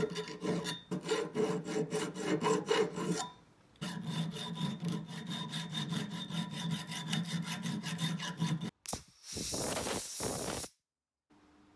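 Round file rasping back and forth in quick strokes through the pivot hole of a steel grafting-tool arm, cleaning out rust. The filing pauses briefly just after three seconds, then resumes, and near the end there is a short, harsher hiss.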